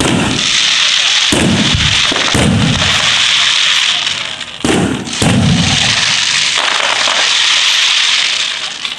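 Fireworks display: aerial shells bursting with five loud bangs in the first five or so seconds, over a continuous dense crackling from crackle stars that fades near the end.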